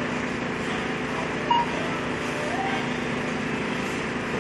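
Supermarket checkout ambience: a steady hum of store machinery with faint background voices, and one short electronic beep about one and a half seconds in.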